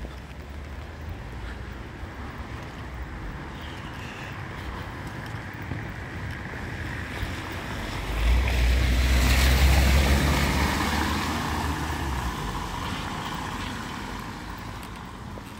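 A car drives past on a wet street, its tyres hissing on the wet paving over a low engine rumble; it swells from about eight seconds in, is loudest around ten seconds, and fades away over the next few seconds.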